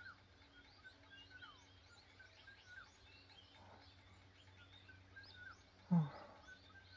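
Quiet outdoor night ambience: many faint, short chirping calls repeating throughout over a low steady hum. A brief low vocal sound comes about six seconds in.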